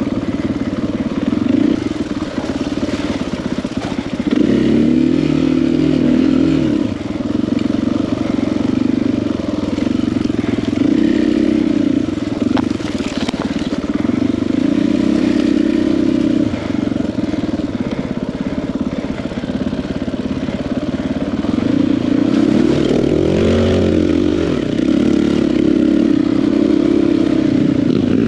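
KTM 500 EXC-F dirt bike's single-cylinder four-stroke engine running on a trail ride, its revs rising and falling with the throttle. The sharpest rises come about four seconds in and again near the end.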